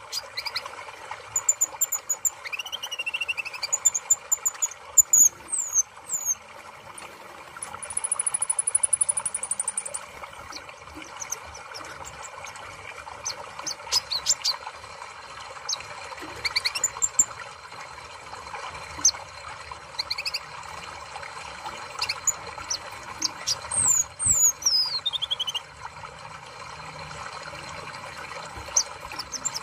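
Kolibri ninja (Van Hasselt's sunbird) calling: scattered high, thin chirps and quick falling whistles, with a high trill lasting about two seconds about eight seconds in and a longer falling whistle near the end, over a steady background hiss.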